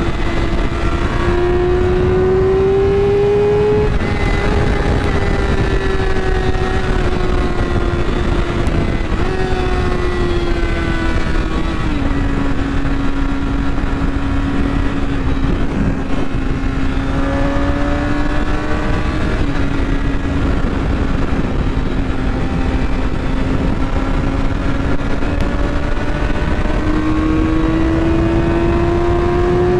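Sport motorcycle engine running at road speed, heard from the rider's seat. Its note climbs under throttle and drops suddenly a couple of times at gear changes, over a heavy wind rumble on the microphone.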